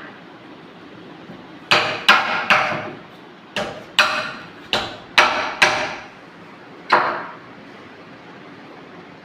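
Hammer blows in quick groups, about nine sharp strikes over five seconds, each with a short ringing decay, as hardware is knocked into place while fitting a door lock. The last blow comes about seven seconds in.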